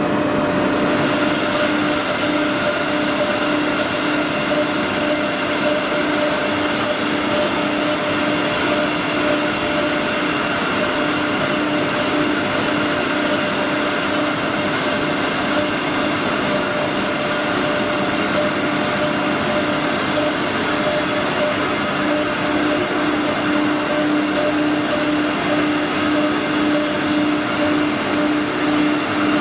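Four-spindle multi-head CNC wood router running: a steady whine from the spindles over a constant rushing noise, unchanging throughout.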